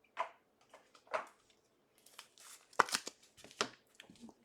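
Hands handling trading cards and plastic card packaging: a string of brief rustles, scrapes and sharp clicks, loudest about three seconds in.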